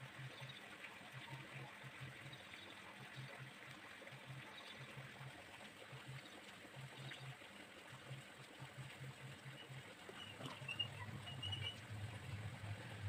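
Faint room tone: a low hiss with a low hum that cuts in and out, and a few brief faint high chirps near the end.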